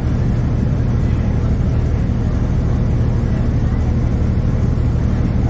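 Heard inside the cabin of a 2009 NABI 40-LFW hybrid transit bus: its Cummins ISB 6.7L diesel and Allison EP40 hybrid drive running with a steady low rumble.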